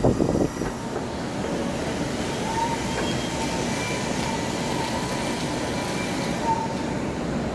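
Steady rumble and hiss of a vehicle in motion. The rougher, knocking rumble at the start eases off within half a second, and a faint wavering whine runs from about two and a half seconds in to near the end.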